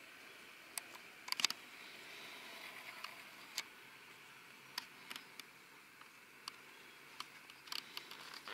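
Faint, scattered soft clicks and taps, a quick cluster of the loudest about a second and a half in, over a faint steady hiss: handling noise from a camera held close to the hunter as he moves.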